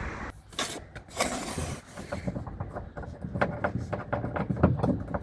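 Rapid small clicks and scraping of a hand tool tightening the door handle's fixing from inside the car door.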